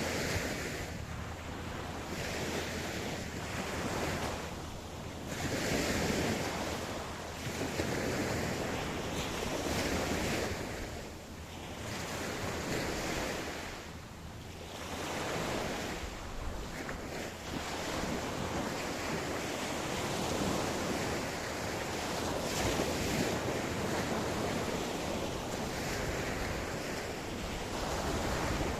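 Ocean waves breaking and washing up a beach, the surf swelling and easing every few seconds in a steady rolling rhythm.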